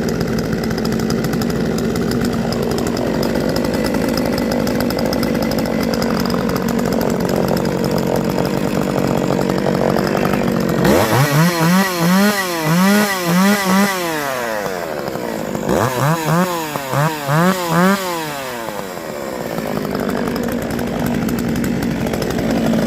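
Jonsered 510 SP two-stroke chainsaw idling steadily, then revved up and down in quick throttle blips, about four in a row twice, before settling back to idle. It picks up cleanly on each blip, running well.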